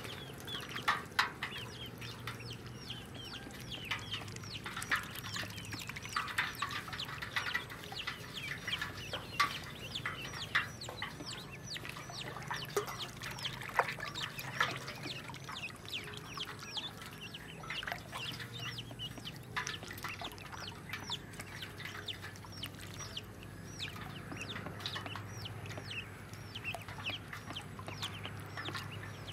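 A flock of ducklings peeping over and over, many short high chirps that mostly fall in pitch, overlapping with no break.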